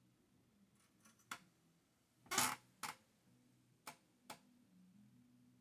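A handful of small clicks and knocks from hands handling parts and tools on a workbench, over a faint low hum. The loudest is a longer knock about two and a half seconds in, followed by single clicks about a second apart.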